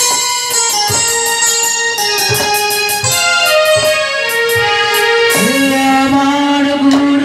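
Instrumental introduction to a song: a keyboard instrument plays a melody over regular hand-drum beats. About five seconds in, a low held note enters, just before the singer comes in.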